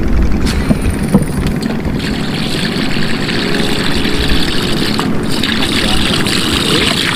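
Small wooden boat's engine running steadily as the boat moves slowly along.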